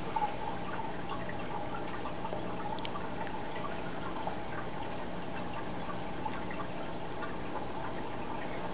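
Aquarium water trickling and bubbling steadily, with many small irregular drips and pops.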